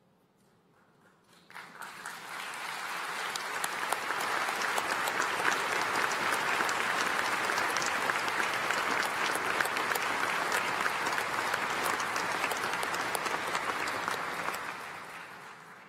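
Audience applauding. The clapping begins about a second and a half in, swells, holds steady and dies away near the end.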